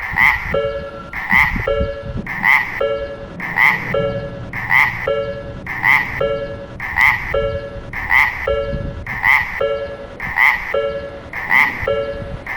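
Japanese railroad crossing's electronic warning bell ringing steadily, a low tone and a high tone alternating in an even beat, about one low-high pair a second, signalling that a train is approaching and the crossing is closing.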